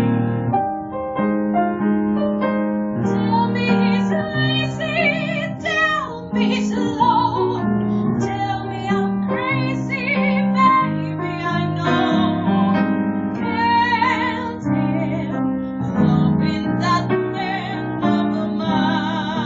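A woman singing a show tune in a trained, operatic voice with wide vibrato, accompanied by piano. The piano plays alone for the first few seconds before the voice comes in.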